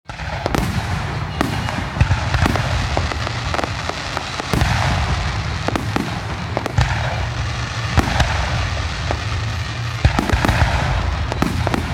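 Fireworks finale: aerial shells bursting in rapid succession, a dense string of sharp booms, several a second, over a constant rumble.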